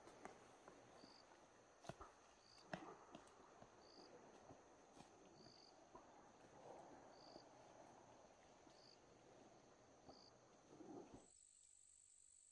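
Faint insects: a steady high drone with a short chirp about once a second, over soft rustling and a few light knocks. About 11 seconds in, the rustling and chirps cut off abruptly, leaving only a steady, slightly higher insect tone.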